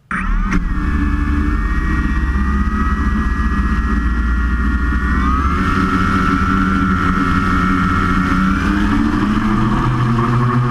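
QAV500 quadcopter's electric motors and propellers whining steadily, starting abruptly; the pitch shifts about halfway through and again near the end as the throttle changes.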